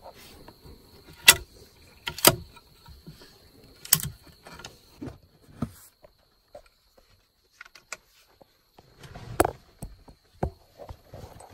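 A few sharp metallic clicks and knocks spaced a second or two apart, the loudest about a second in, from handling a scoped bolt-action rifle on a vehicle-mounted gun rest. A thin, steady high-pitched insect drone runs underneath.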